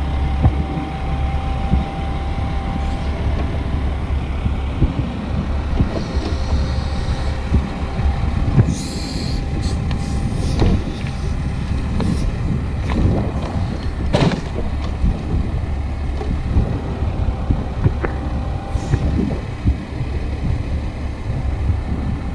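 Truck engine running at a steady idle, with scattered knocks and clunks over it.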